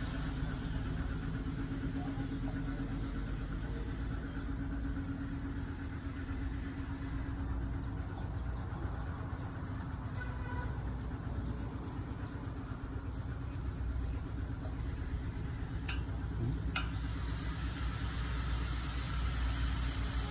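A machine running steadily with a low hum. About three-quarters of the way through come two sharp clicks, under a second apart.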